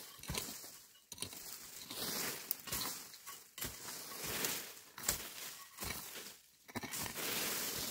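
A hoe chopping into and scraping through dry, stony soil in irregular strokes, with dry vegetation rustling.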